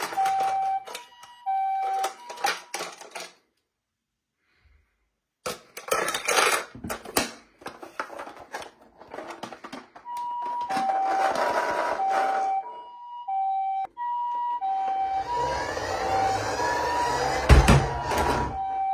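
Toy ambulance's electronic two-tone siren, switching back and forth between two pitches. It sounds briefly at the start, gives way to plastic clicks and handling knocks, and returns steadily about halfway through. Near the end a rushing noise and one loud thump join it.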